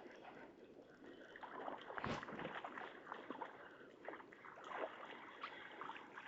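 Faint handling noise in a small boat: scattered small clicks and knocks over a low wash of water and air, with one duller thump about two seconds in.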